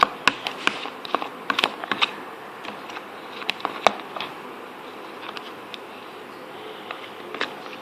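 Scattered small sharp clicks and taps of slime-making utensils and containers handled at close range, thickest in the first two seconds and then only a few isolated ticks.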